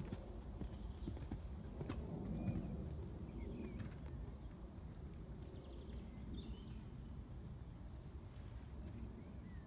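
Hoofbeats of a showjumping horse cantering on a sand arena surface, soft dull strides over a steady low outdoor rumble.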